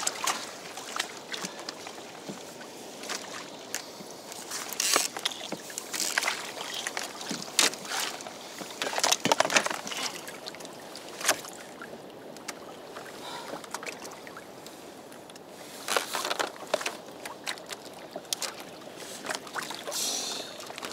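Sea water sloshing and lapping against a kayak's hull, with scattered knocks and splashes.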